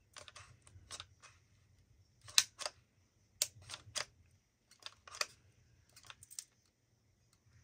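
About a dozen light, irregularly spaced clicks and taps of small craft supplies handled on a worktable.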